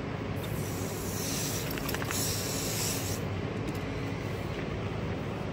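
Water spraying from a garden hose nozzle onto a dog's soapy coat during a bath: a hiss that starts about half a second in and stops a little after three seconds, over a steady low background rumble.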